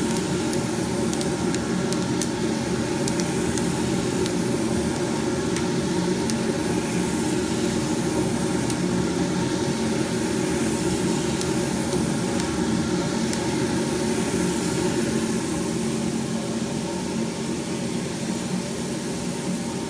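Diedrich coffee roaster's cooling tray running: a steady drone from the cooling fan and stirring motor, with freshly roasted coffee beans rustling and faintly clicking as the arms sweep them around.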